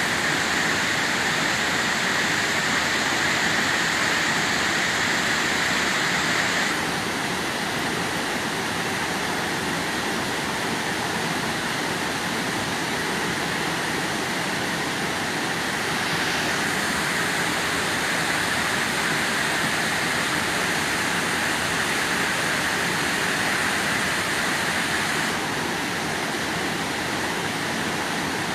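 Kurundu Oya Ella waterfall rushing in a steady, loud roar of falling water. Its tone changes suddenly three times.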